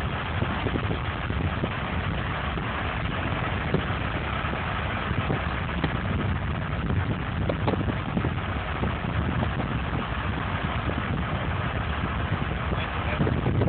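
Car driving along a road, heard from inside the cabin: a steady rumble of engine and tyre noise.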